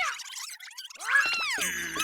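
High, squeaky cartoon-creature voices making short chirps and calls that slide in pitch, mostly falling. Near the end a bright held musical chord comes in.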